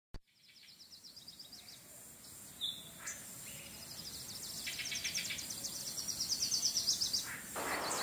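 Outdoor ambience: a fast, high-pitched chirping trill, about eight chirps a second, repeats over a steady high hiss and grows louder. A brief higher call cuts in a little before the third second.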